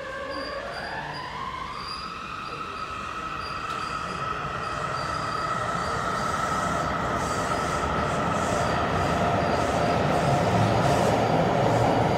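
Yokohama Municipal Subway Green Line linear-motor train pulling out of the station. The motor whine rises in pitch over the first two seconds, then holds a steady tone, while the running noise grows louder as the train gathers speed.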